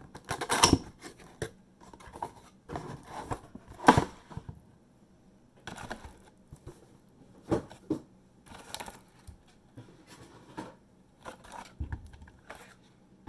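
Handling noise: irregular knocks, scrapes and rustles as objects are picked up and set down, with the sharpest knocks about half a second and four seconds in.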